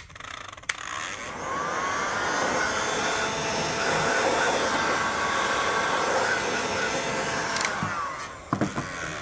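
A SKIL heat gun's fan motor running, building up after a click at switch-on, holding steady with a faint whine, then winding down about eight seconds in, followed by a few clicks. It is heating the plastic projector holders inside the headlight to soften them.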